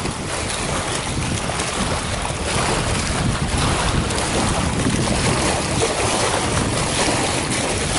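Wind buffeting the microphone, a steady rushing noise, with small waves lapping against a rocky lakeshore.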